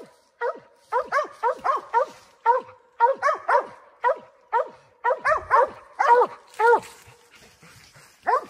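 Mountain cur hunting dogs barking treed, a rapid run of short barks about three a second with a lull of about a second near the end. This is tree barking, the sign that the dogs have a squirrel up the tree.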